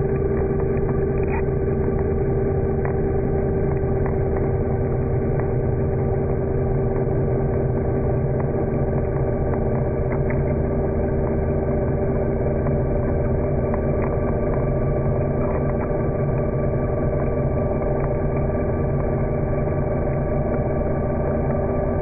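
Underwater scooter's electric motor running steadily underwater, a constant hum with a steady whine held on one pitch.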